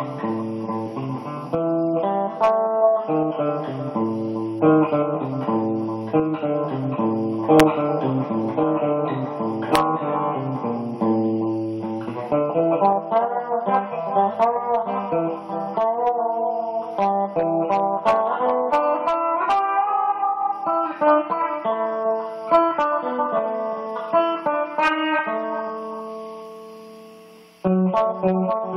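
Solo guitar played with picked single notes over low bass notes. Near the end a chord rings out and dies away, then the playing starts again.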